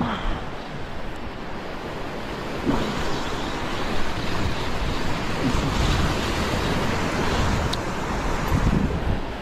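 Sea waves breaking and washing over sandstone rock ledges, with wind buffeting the microphone. The surf grows louder about three seconds in, with low rumbling surges.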